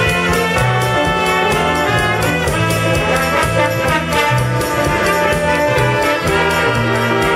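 Live big band jazz: a brass section of trumpets and trombones playing sustained chords together with saxophones, over a moving bass line and steady drum and cymbal time.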